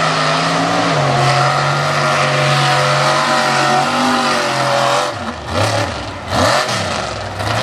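Mega truck's engine running hard at steady high revs as it drives through a mud pit, then revving up and down in quick bursts from about five seconds in.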